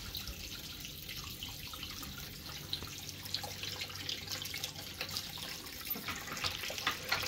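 Hot water pillar tap running a steady stream into a stainless steel kitchen sink, splashing onto the dishes in it. The tap flows freely, a sign that the air lock in the hot water pipework has been cleared.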